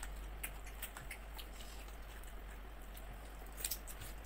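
Small clicks and smacks of people eating with their hands off a banana leaf: fingers working rice and handling shrimp, and chewing, with a brief cluster of sharper crackles near the end, over a low steady hum.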